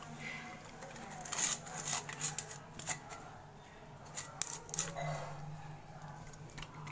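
A dog eating chicken and gravy with roti from a steel plate: irregular wet chewing and licking clicks, coming in small clusters.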